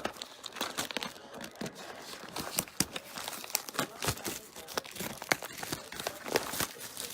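Plastic shrink wrap crinkling and tearing in a run of irregular crackles as it is pulled off a sealed box of hockey cards.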